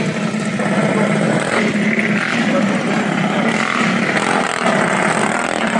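Mini bike engines running steadily, a continuous low drone without a clear rev.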